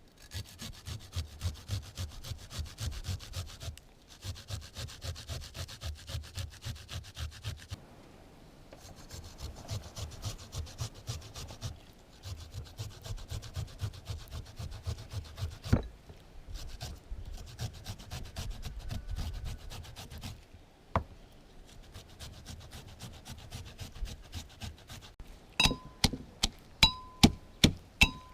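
Knife working food on a wooden board: rapid, even back-and-forth cutting strokes in runs of a few seconds with short pauses. Near the end come louder, sharp chopping knocks, each with a ringing ping.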